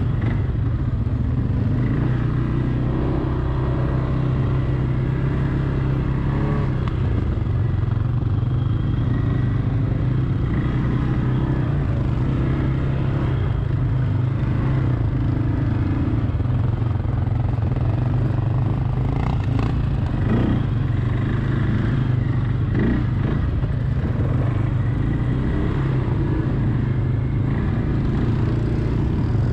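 Quad bike's single-cylinder engine running steadily at low trail speed, with rattles from the machine and a few short knocks about two-thirds of the way through.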